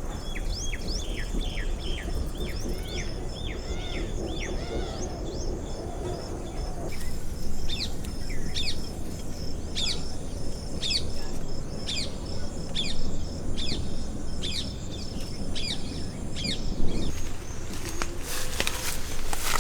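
Birds calling with short, quick sweeping chirps: at first several in a row each second, then single chirps about once a second, over a low steady rumble. A few sharp knocks come near the end.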